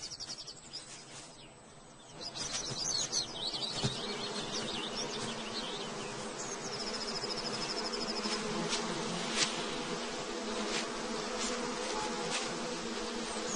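Insects swarming with a steady buzzing hum that sets in about two seconds in. A short high trill runs through the middle, and a few faint ticks sound over the hum.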